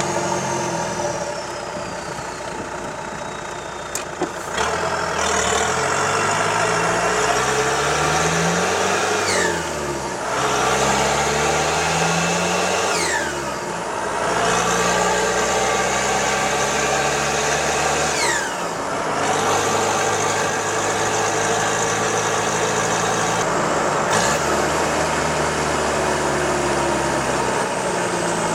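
Isuzu 4BD1T 3.9-litre four-cylinder turbo diesel, on a short header exhaust, pulling up through the gears with a high turbo whistle over the engine note. About four times, at each lift-off for a gear change, the whistle falls away sharply as the dump valve blows off.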